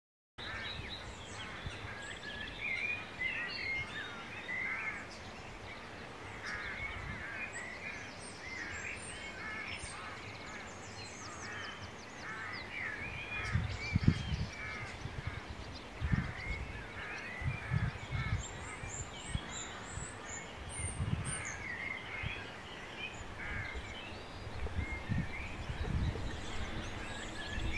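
Several birds singing and calling, a steady chorus of short chirps and warbles. From about halfway through, low rumbles and thumps come and go under it.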